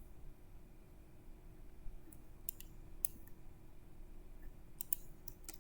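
A few scattered sharp clicks from computer input over a faint steady hum, with quiet gaps between them.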